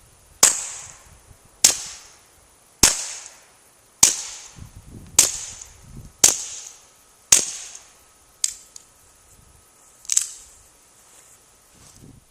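A Beretta 21A Bobcat .22 pistol fires subsonic rounds through a Thompson Machine Wasp suppressor that has been wetted with water, heard from downrange of the muzzle. It gives seven sharp suppressed cracks about a second apart, each with a brief ringing tail. Two quieter sharp sounds follow a few seconds later.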